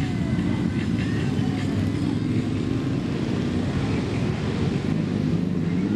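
Several motorcycle engines running as a group of bikes pulls away and rides off at low speed, with one engine's pitch rising near the end.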